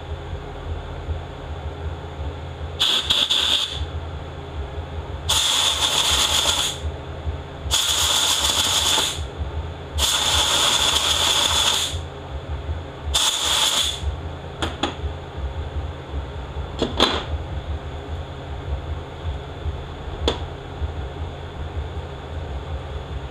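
Compressed-air blow gun blowing five short blasts through the oil passages of a 68RFE transmission clutch drum, clearing debris from its orifice. The blasts last a second or two each, followed by a few light clicks, over a steady low hum.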